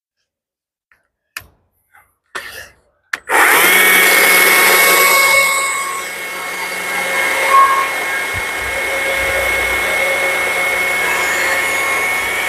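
Stihl MSA 140 C cordless battery chainsaw starting up after a few short clicks, then running at full speed with a steady electric whine. Its chain cuts across a spruce 2x12 board, and the sound drops a little in level once the saw is under load in the wood.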